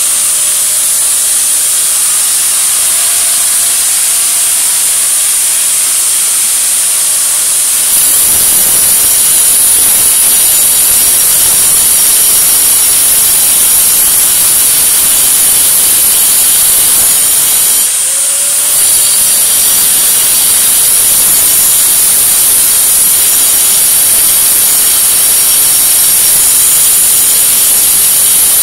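Corded electric grinder running steadily with a loud hiss as it abrades a surface. It gets louder about a third of the way in, and near the middle it briefly dips and the motor whines back up to speed.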